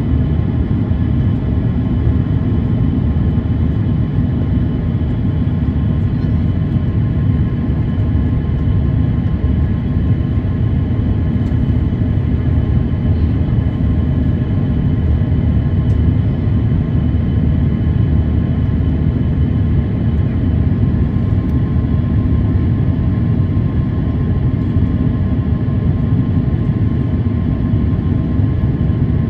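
Steady cabin noise inside an Airbus A350-900 in its climb after takeoff: a deep, even rumble of its Rolls-Royce Trent XWB engines and the airflow past the fuselage, with a few faint steady whining tones above it.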